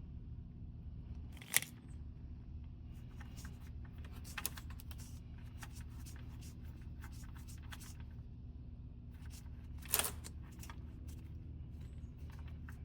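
Irregular sharp clicks and clatters from tools being handled while working on a car, with two louder clicks, over a steady low hum.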